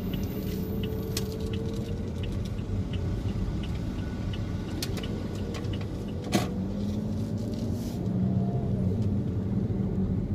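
Car cabin noise while driving: a steady engine and road rumble whose hum drifts slowly up and down in pitch with speed. One sharp click about six seconds in.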